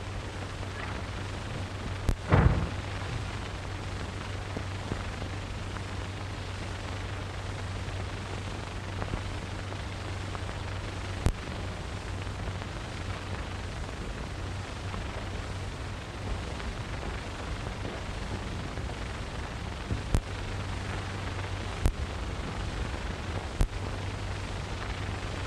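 Steady hiss and low hum of a worn 1930s optical film soundtrack, broken by scattered clicks and pops from the print. A heavier thump comes about two and a half seconds in.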